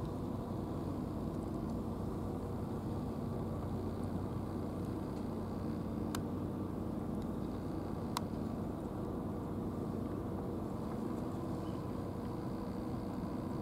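A steady, low mechanical drone from an engine or motor running at an even pace, with two faint sharp clicks about six and eight seconds in.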